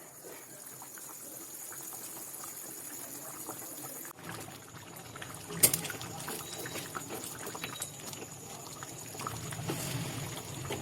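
Sabji cooking in a pan: steady bubbling with many small pops, and one sharp clink about five and a half seconds in.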